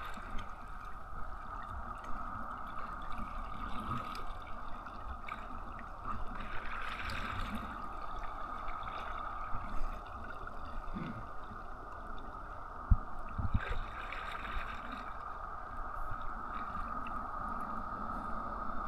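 Water sloshing and lapping against a kayak's hull over a steady hiss, with two louder splashes about 7 and 14 seconds in and a few light knocks.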